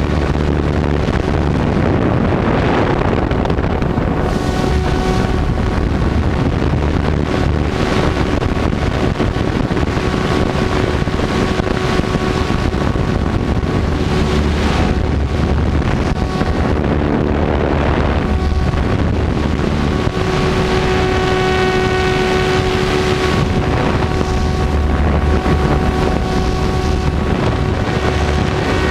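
Electric 700-size RC helicopter heard from its tail boom in flight: a steady whine from the motor and rotors over a heavy rush of blade and wind noise, which swells and eases several times while the pitch holds.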